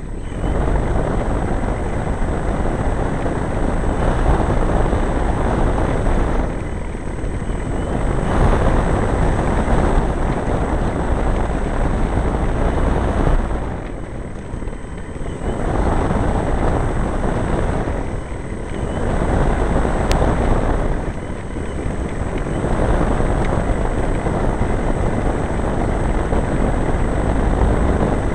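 Engine and propeller of a large RC Quaker model airplane running close to the microphone while the plane is on the ground, the sound dropping and coming back up several times as the throttle is eased and opened.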